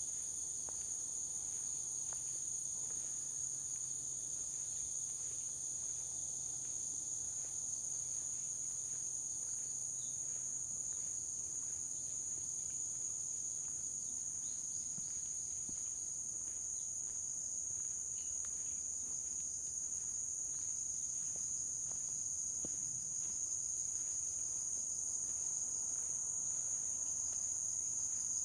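A steady, high-pitched chorus of insects in the woods, with the walker's soft footsteps on the trail at an even walking pace underneath.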